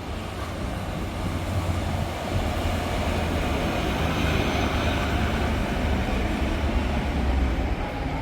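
Truck V8 engine on open exhaust pipes running steadily, a low rumble that grows a little louder after the first second.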